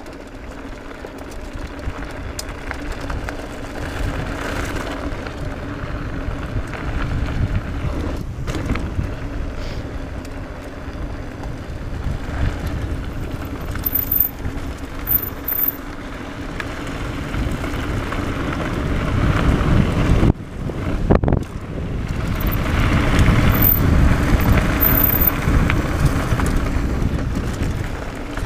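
Mountain bike riding fast down a dirt trail: tyres rolling over the dirt and the bike rattling, with wind buffeting the microphone, getting louder as speed builds.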